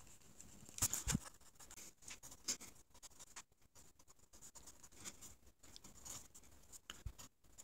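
Pencil writing on a pad of lined paper: faint, irregular scratchy strokes of graphite on paper. A louder brush and knock of the hand across the paper comes about a second in.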